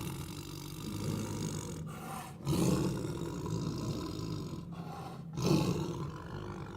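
Tiger growling and roaring over food in three long, rough bouts, each starting loud and tailing off, with short breaks about two and five seconds in.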